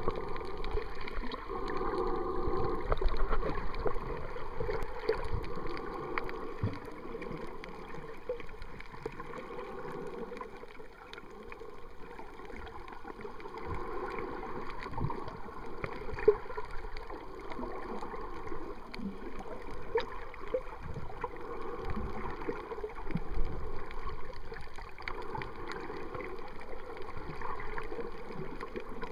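Muffled underwater sound picked up by a camera in its housing while snorkeling: water sloshing and gurgling around it, swelling and easing, with scattered faint clicks and one sharper click about sixteen seconds in.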